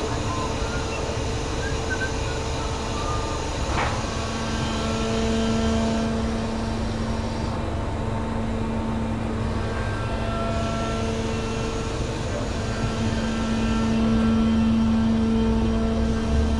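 Fairground ride's drive machinery running with a steady hum and rumble as the ride gets moving. There is one short knock about four seconds in, and a second, higher hum comes and goes.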